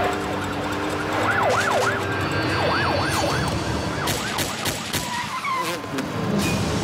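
Police car siren wailing in rapid rising-and-falling sweeps, then a quick string of pistol shots from about halfway through, over the rumble of engines.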